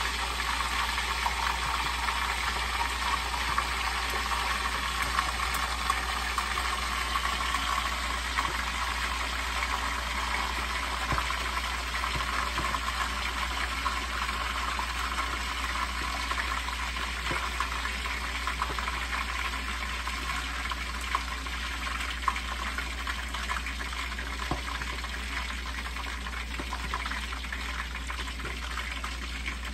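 Milkfish frying in hot oil in a lidded pan: a steady sizzle dotted with small crackling pops, gradually getting a little quieter.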